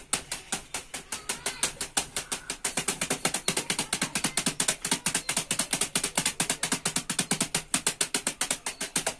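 Bare fists punching a hanging cement sack filled with small pieces of gravel, in a fast, unbroken flurry of hits, several a second.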